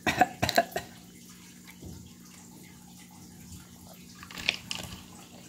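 A plastic drink bottle is crinkled and handled in the first second, with a burst of sharp crackles. About four and a half seconds in come drinking sounds from the bottle.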